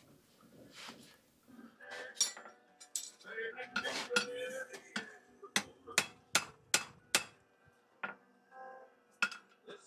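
Farrier's hammer striking a steel horseshoe on an anvil, each blow sharp and followed by a metallic ring. The blows start about two seconds in, with a quick run of about five in a row midway and two more near the end.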